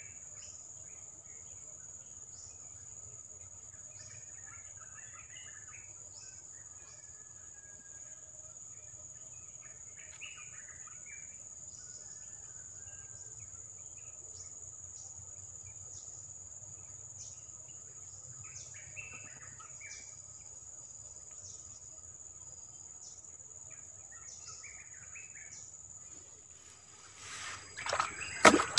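A steady, high-pitched insect trill, with short bird calls every few seconds. Near the end, loud splashes as a hand works in shallow water in a small hole.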